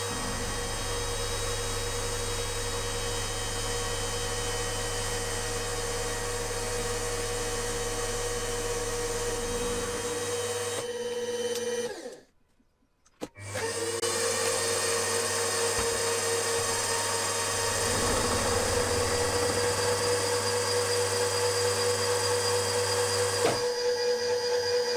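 Milling machine spindle running steadily with a constant whine as an end mill cuts an aluminium crankcase block, sped up to four times normal speed. The sound drops out for about a second near the middle.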